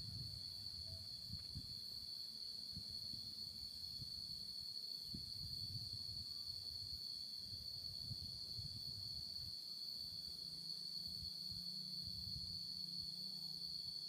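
Insects droning: a steady, unbroken high-pitched buzz, with a low rumble underneath.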